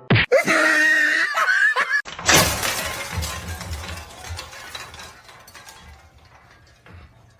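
A short wavering cry, then about two seconds in a loud crash like something shattering, its noise dying away over the next few seconds.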